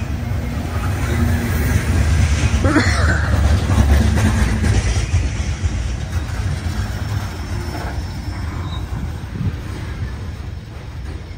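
Freight train of steel coal gondola cars rolling past on the rails: a heavy low rumble of wheels on track that peaks early, then fades as the last car goes by and the train pulls away.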